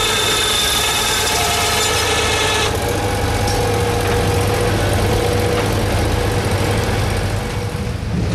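Engine-driven portable band sawmill running steadily. A high whine rides over the engine for the first few seconds and stops abruptly, leaving the engine hum and a steadier mid-pitched tone.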